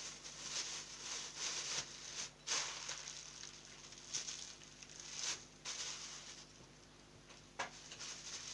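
Thick plastic bags, doubled one inside the other, rustling and crinkling in irregular bursts as meat is packed into them, with a few sharper crackles.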